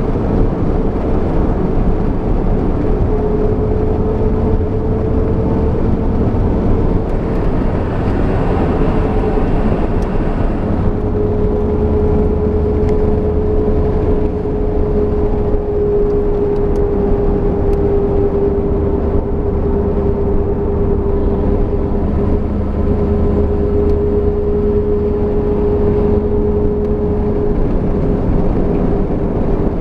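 Third-generation Pontiac Firebird Trans Am driving, with a steady whine from its limited-slip (Posi) rear differential over the engine and road rumble. The whine sets in a few seconds in and holds almost to the end; it is the loud noise the differential makes under load.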